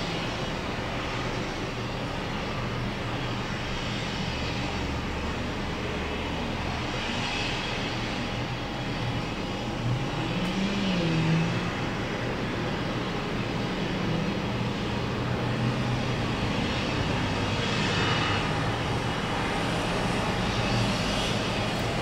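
Crawler-mounted pile driver rig's engine running steadily, with a brief rise and fall in pitch about ten seconds in.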